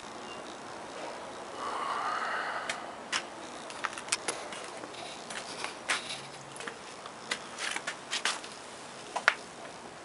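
A short rustling swish, then a run of irregular light clicks and taps from hard objects being handled.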